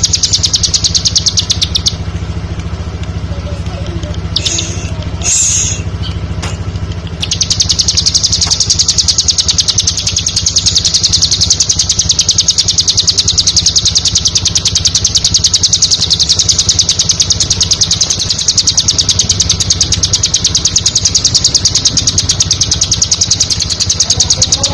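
Ciblek (bar-winged prinia) song: a high, very fast trill of rapidly repeated notes. A burst of about two seconds is followed by a few short calls, then an unbroken trill from about seven seconds in, over a steady low hum.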